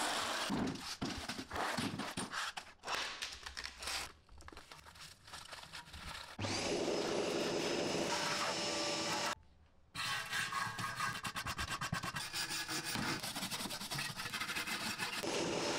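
Glass medicine bottles and plastic packets clinking and rustling as they are handled and cleared away. About six seconds in, a vacuum cleaner starts with a rising whine and runs for a few seconds, sucking debris off a rusty sheet-metal cabinet floor. After a brief break, a metal tool scrapes steadily over the rusty floor.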